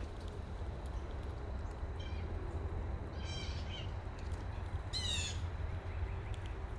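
Bird calls, three short calls about two, three and five seconds in, the last falling in pitch, over a steady low rumble.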